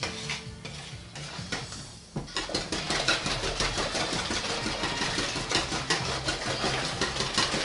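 Pancake batter of milk, eggs, oatmeal and flour being stirred with a metal utensil in a mixing bowl: rapid scraping and clicking against the bowl, getting quicker and louder about two seconds in.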